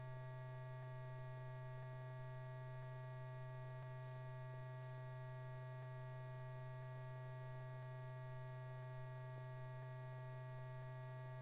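A steady low electrical hum with fainter higher tones stacked above it, unchanging throughout.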